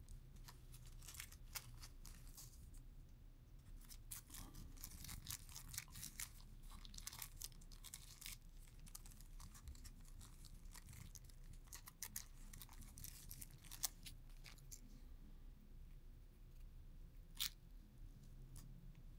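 Faint crinkling and clicking of a plastic camera lens guard and its packaging being handled, with many small crackles over most of the stretch, thinning out later, and one sharper click near the end.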